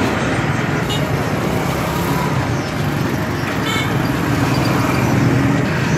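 Steady road traffic noise with a vehicle engine running.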